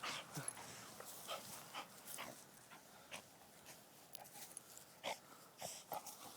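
A boxer-beagle mix dog breathing and snuffling in faint, short, irregular puffs, with scuffing, as it rolls and twists on the ground.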